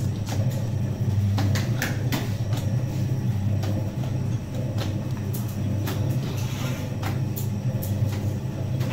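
Horizontal dough mixer running, kneading Sangak dough in its trough: a steady low motor hum with frequent short clicks and knocks.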